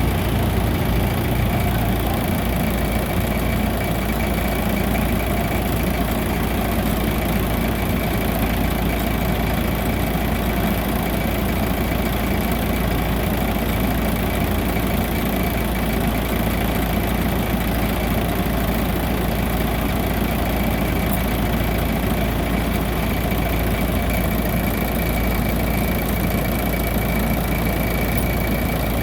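Bimo Maxxi rice combine harvester running steadily, its engine and threshing machinery making a constant drone with a thin steady whine above it.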